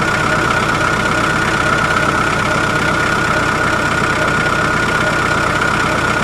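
An engine or motor running steadily at a constant speed, with a low, rapid pulsing and a steady high whine over it.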